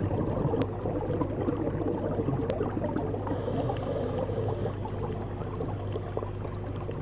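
Underwater reef ambience: dense crackling and bubbling water over a steady low hum.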